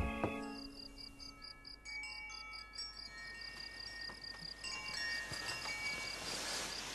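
Night ambience: crickets chirping in a rapid, even high pulse, with scattered thin, high tinkling notes like wind chimes. It opens with the last of soft music and two sharp clicks.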